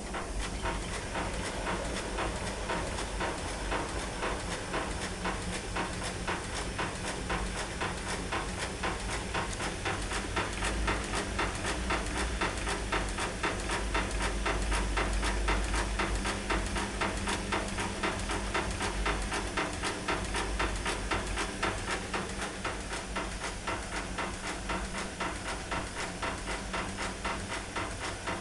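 Candy CMD106 washer-dryer turning its wet load before another rinse: a steady motor hum with a fast, even rattle from the turning drum, building a little toward the middle and easing off near the end.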